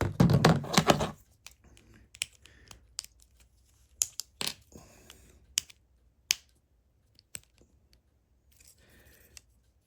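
Plastic Lego bricks being handled and pulled apart: a burst of rattling plastic at first, then scattered sharp clicks of bricks snapping and separating, roughly one a second.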